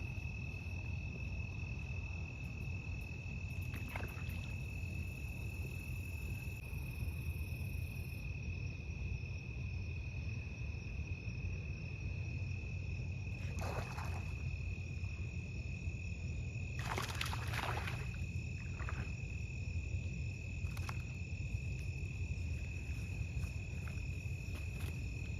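Insects trilling steadily at one high, unbroken pitch over a steady low rumble, with a few brief rushing noises about halfway through.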